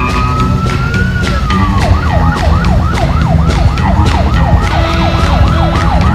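A siren wails slowly up and back down, then switches to a fast yelp sweeping up and down about three times a second.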